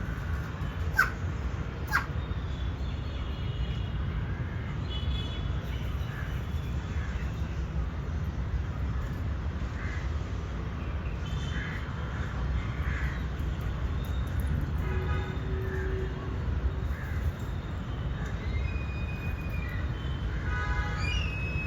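A crow letting out short, sharp cough- or sneeze-like bursts, two of them a second apart near the start, which the uploader suspects come from a blocked windpipe. Short bird calls sound here and there over a steady low rumble.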